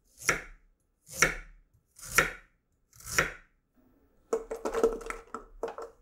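Chef's knife slicing ginger on a wooden cutting board: four separate chops about a second apart, each a sharp knock of the blade on the board. Then, near the end, garlic cloves dropped into a plastic blender jar make a quick run of small knocks against the jar.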